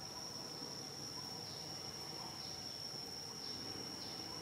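Steady high-pitched insect drone with a faint pulse about once a second.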